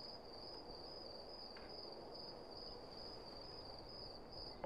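Crickets chirping in an even, steady rhythm as a night ambience bed, faint, over a low hiss.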